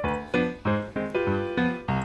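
Background music: a bouncy piano or keyboard tune with evenly spaced struck notes.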